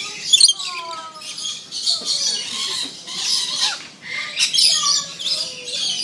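A flock of lories screeching and squawking, harsh shrill calls coming in repeated bursts with several birds calling over one another.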